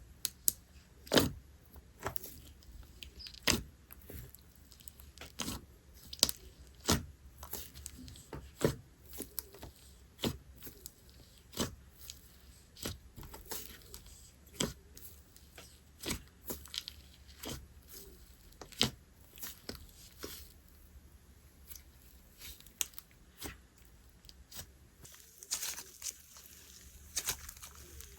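Hands playing with slime: sharp clicking pops of trapped air every second or so as it is pressed and stretched, turning into a denser crackling near the end.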